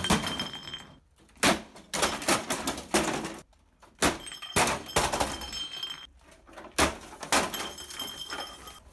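A small, heavy 1988 Panasonic CRT television dropped onto a motorcycle helmet on concrete, several times over: a series of heavy thuds with hard plastic clattering, the impacts coming a second or so apart with short quiet gaps between.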